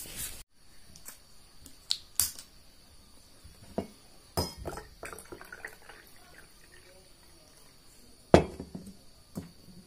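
Water poured from a steel pot into a steel tumbler, with clinks and knocks of the metal vessels; the loudest clank comes near the end.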